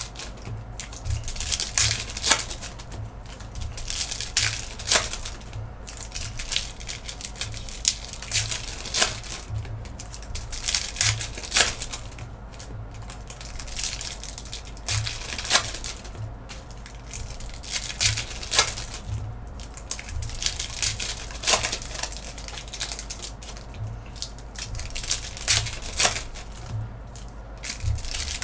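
Hands flipping and sorting through a stack of trading cards fresh from foil packs: irregular crinkles, rustles and sharp card snaps, over a faint steady low hum.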